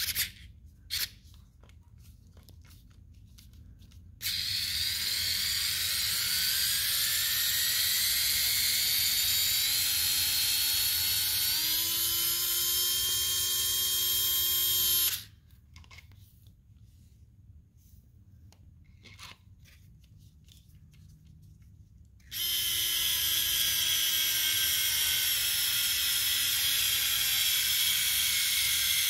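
Cordless electric screwdriver turning a long 2 mm screw in an R/C buggy's front bumper, its motor whining. The first run lasts about ten seconds and rises in pitch, then holds steady. After a pause with a few clicks, a second run of about seven seconds sinks slightly in pitch.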